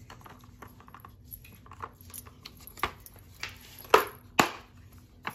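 Small plastic clicks and clatter from handling the parts and plastic tubes of a toy marker-making kit, with two louder sharp knocks about four seconds in.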